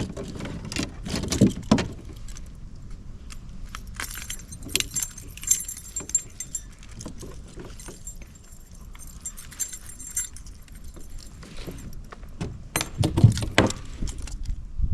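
Metallic jingling and rattling from a bass being fought and landed in a kayak on a spinnerbait, with dull knocks in the first two seconds and again near the end.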